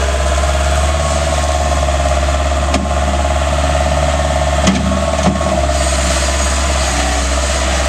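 Bobcat 743 skid-steer loader working: its engine runs steadily under a high whine as it carries and dumps a bucket of dirt, with a few short knocks partway through.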